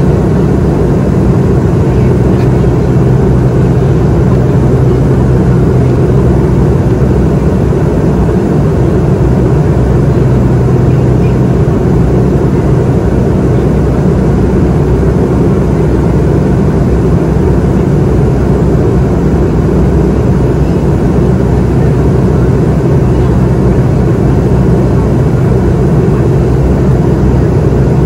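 Steady in-flight cabin noise of a McDonnell Douglas MD-88 airliner: the rush of air over the fuselage and a steady low drone from its tail-mounted Pratt & Whitney JT8D turbofans.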